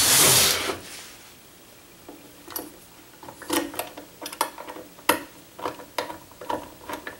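Hand screwdriver driving a small screw through a particleboard drawer front to fasten a drawer handle from behind: a string of irregular light clicks and taps as the screwdriver is turned and regripped. It opens with a brief rush of noise that dies away within the first second.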